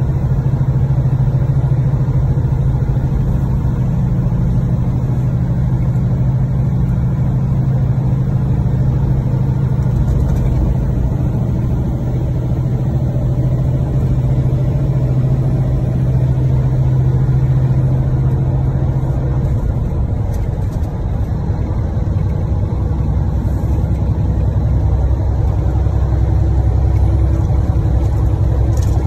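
Cab noise of an 18-wheeler semi truck cruising on a highway: a steady diesel engine drone under road noise. About twenty seconds in, the drone drops to a deeper note.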